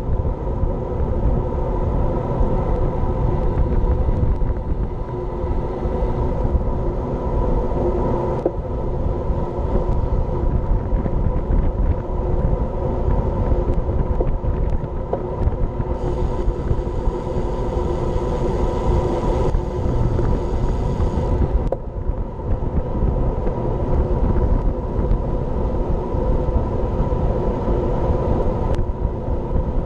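Wind rumbling over the action camera's microphone as it rides at speed with a group of road bikes, mixed with steady tyre-on-tarmac road noise. About halfway through, a higher hiss joins for about five seconds.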